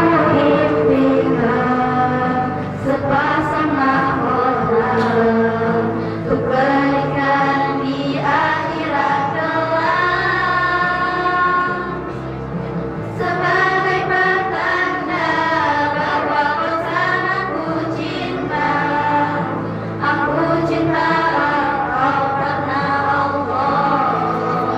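A choir singing, several voices holding long notes together in phrases.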